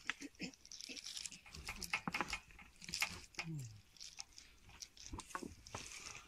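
Vinyl pool liner crinkling and rustling as a white frame pole is worked along its top sleeve, with scattered clicks and knocks of the pole and fittings.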